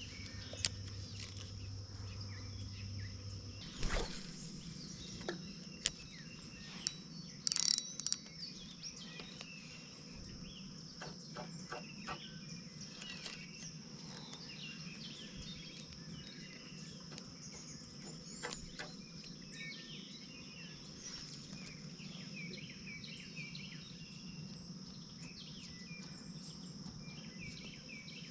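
Outdoor ambience of a steady, high-pitched insect drone with birds chirping throughout. A few sharp clicks or knocks are heard in the first eight seconds, and a low hum stops about four seconds in.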